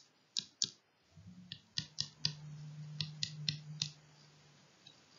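A stylus tapping and clicking against a tablet or touchscreen while handwriting, about a dozen sharp taps in irregular groups. A faint low hum runs under the taps for about three seconds in the middle.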